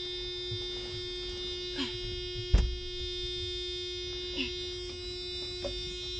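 NA Mazda Miata's door warning buzzer sounding as a continuous steady buzz, the annoying chime left on while the door is open. A single sharp knock about two and a half seconds in and a few light clicks come from hands working near it.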